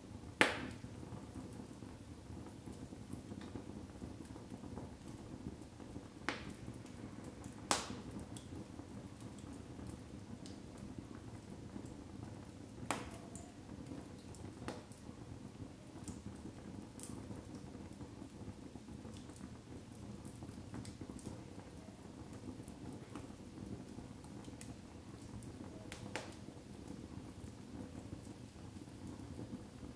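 Split firewood logs burning in an open fireplace: a steady low flame rustle with sharp crackles and pops every few seconds, the loudest about half a second in.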